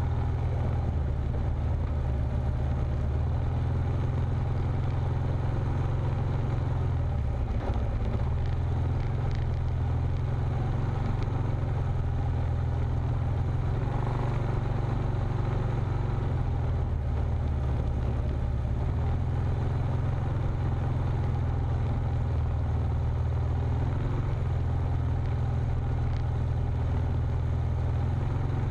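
Off-road vehicle driving slowly along a bumpy dirt trail: a steady low engine and drivetrain rumble, with a few knocks and rattles from the rough ground.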